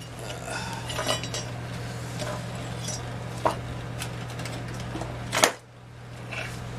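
Galvanized pipe fittings and tools clinking and knocking together as they are handled on a metal workbench, a few separate clacks with the loudest about five seconds in. A steady low hum runs underneath.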